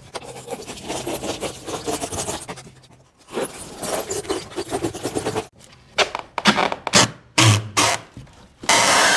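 Hand saw rasping through the expanded polystyrene foam of an insulated concrete form in quick strokes, cutting a section of the form away, then several separate knocks and scuffs, and a louder steady rasp starting near the end.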